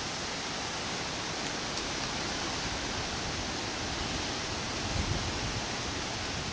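Steady, even hiss of outdoor ambience, with a brief low rumble about five seconds in.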